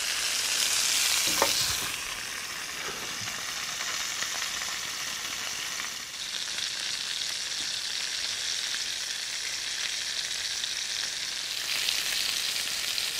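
Cabbage rolls frying in bacon fat and clarified butter in an enamelled cast-iron pot: a steady sizzle, louder in the first couple of seconds and again near the end. A short knock comes about a second and a half in.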